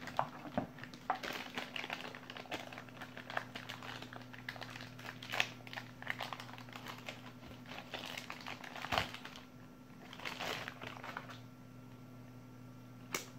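Clear plastic bag crinkling in irregular bursts as a handheld digital multimeter is worked out of it, with a couple of light handling knocks. It quietens near the end.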